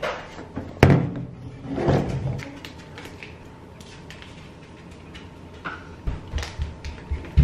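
A kitchen cupboard door bangs shut about a second in, the loudest sound. Then come handling noises and a plastic water bottle being drunk from, with a few gulps near the end.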